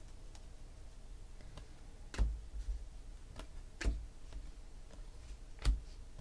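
A stack of glossy football trading cards being flipped through by hand, each card slid to the back of the stack with a soft click or snap. There are several irregular clicks, the clearest about two seconds in, about four seconds in and near the end.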